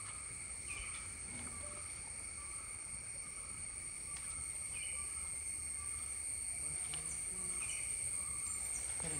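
Steady high-pitched insect chorus, several shrill tones held without a break, with three short chirps over it.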